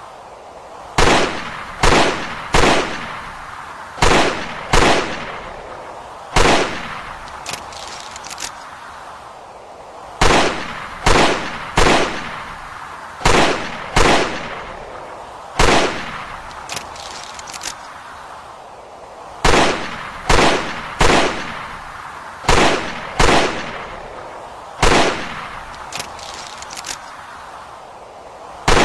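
Smith & Wesson Model 29 .44 Magnum revolver firing about twenty loud shots in uneven groups of two or three, with pauses of up to about four seconds between groups. Each shot is followed by a ringing echo that dies away in under a second.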